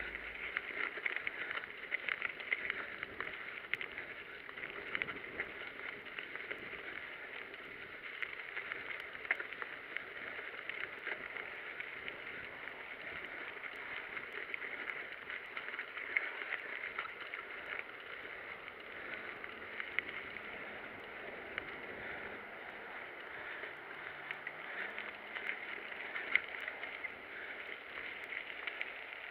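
Mountain bike rolling along a gravel and dirt trail: a steady hiss of tyres on loose gravel, with frequent small rattles and clicks from the bike.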